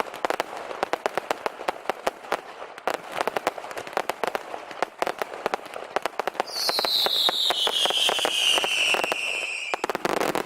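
Fireworks going off as a dense run of rapid crackling bangs. About six seconds in, a loud whistle starts high and falls steadily in pitch for about three seconds, then cuts off, followed by a few last bangs.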